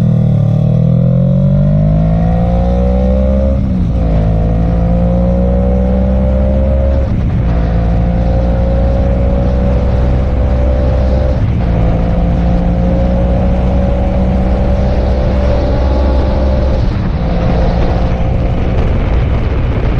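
Kawasaki Ninja 650's parallel-twin engine accelerating hard through the gears. Its pitch climbs in each gear and dips briefly at four upshifts, and each gear rises more slowly than the last.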